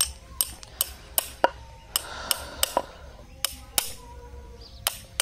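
A farrier's hammer tapping nails through a metal shoe into a bullock's hoof: about a dozen sharp metallic taps, two or three a second with a short pause or two, each leaving a faint ring.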